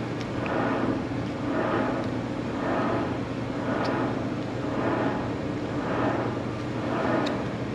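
A steady low mechanical hum with a whooshing swell that repeats about once a second.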